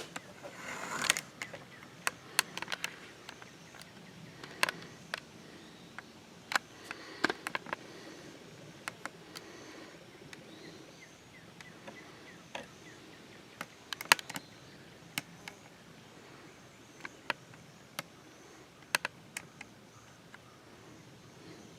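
Irregular sharp clicks and light knocks from equipment being handled, some in quick clusters, with a rustle about a second in, over faint outdoor background.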